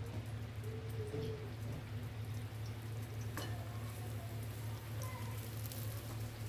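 Cassava pastels sizzling as they shallow-fry in a little oil in a metal wok, with fine crackling and a sharp tap of the wooden spatula about three and a half seconds in, over a steady low hum.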